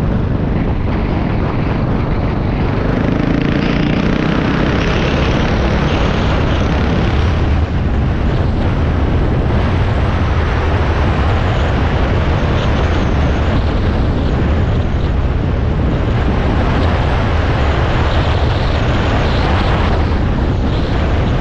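Dirt bike engine running steadily under way, with wind noise on the microphone and tyre noise from the gravel road.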